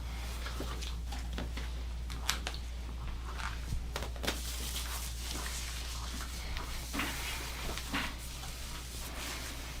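Hands-on back massage on a treatment table: soft rustling and scattered small knocks and creaks over a steady low hum.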